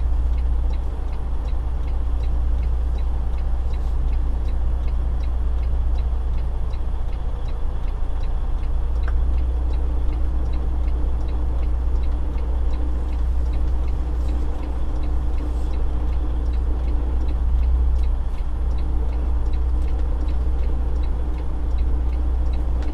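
Cab interior of a 2016 Freightliner Cascadia with its Detroit DD15 diesel running as a steady, deep drone, with a faint, regular ticking repeating throughout.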